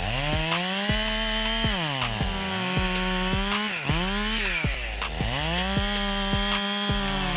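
Chainsaw engine running at high revs, its pitch sagging several times as the chain bites into the wood and climbing back as it clears.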